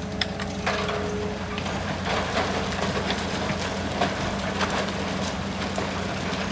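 Hitachi excavator's diesel engine running steadily, with a brief whine in the first second or so. From about two seconds in, sand and stones pour from the bucket onto a tilted metal mesh screen, making a dense rattling patter.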